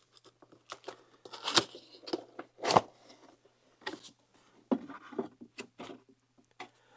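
Cardboard product box being opened by hand: the lid sliding up off the base and the inner flap folded back, with irregular scrapes and rustles, the two loudest about one and a half and three seconds in.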